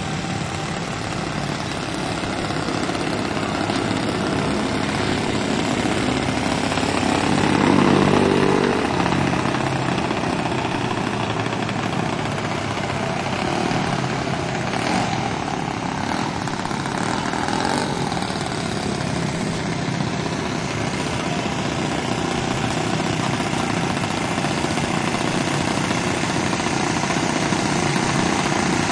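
Yak 54 model airplane's piston engine and propeller idling on the ground, revving up briefly about eight seconds in before settling back to a steady idle.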